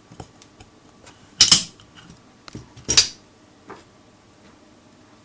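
Handling noise at a workbench: two short rustling scrapes about a second and a half apart, with a few light clicks around them.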